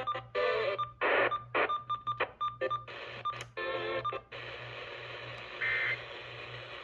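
Broadcast audio with music-like sound and repeated short tones. After about four seconds it gives way to a steady background, and a short electronic beep repeats about every second and a half.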